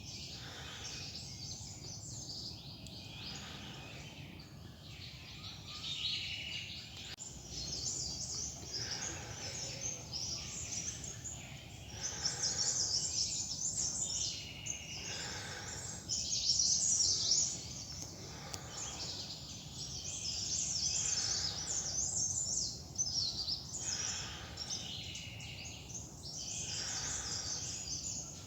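Several forest birds chirping and calling in quick overlapping bursts of high notes, growing busier and louder about halfway through, over a steady low rumble.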